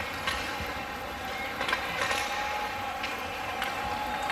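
Ice hockey game in play on an indoor rink: a steady wash of rink noise broken by several sharp knocks of sticks and puck.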